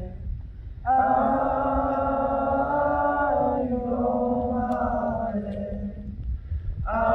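Slow wordless chanting on long held notes, in phrases a few seconds long, with a short gap just after the start and another about six seconds in. A low rumble sits underneath.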